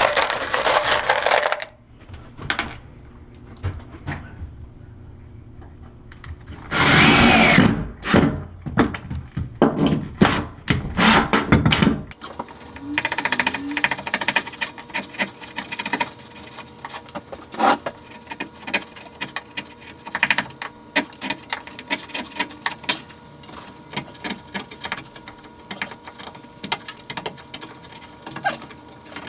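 Renovation work: a power tool run in short bursts, first briefly and then several times in a row, followed by a long stretch of small knocks and clicks.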